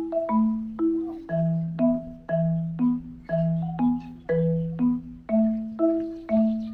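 Background music: a light melody of struck, quickly fading notes in a marimba-like sound, about two notes a second in a repeating pattern.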